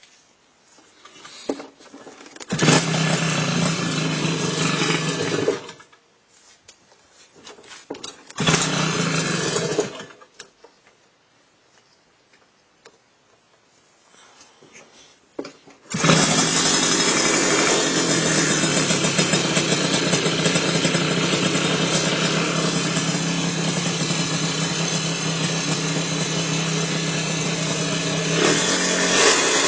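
Motorcycle engine started and cut off abruptly about three seconds later, started again and cut off after under two seconds, then started a third time and left running steadily, with a short rise near the end. The sudden stops are the newly fitted safety kill switch cutting the engine.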